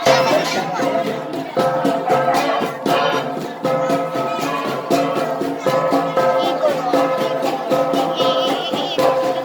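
An ensemble of gangsa, flat gongs, beaten in a fast, steady rhythm, the struck gongs ringing on sustained metallic tones.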